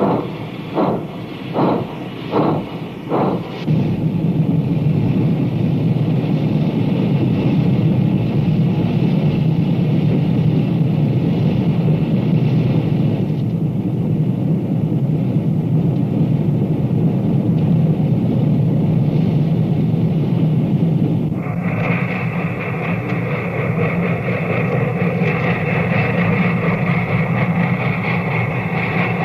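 Union Pacific Big Boy 4-8-8-4 articulated steam locomotive working a heavy freight train. It opens with sharp exhaust chuffs about two a second, which after a few seconds run together into a continuous heavy rumble as the train gets going. About three-quarters of the way through, a higher steady sound joins the rumble.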